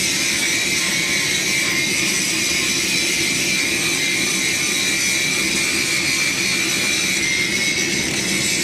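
A blacksmith's forge running while it warms up: a steady, unbroken rushing roar with a faint steady whine in it.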